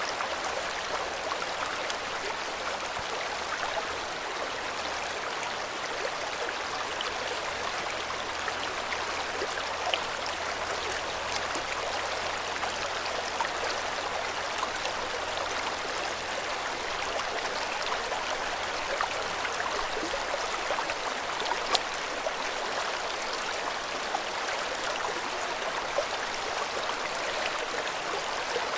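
River water flowing, a steady rushing and babbling with a few brief small splashes.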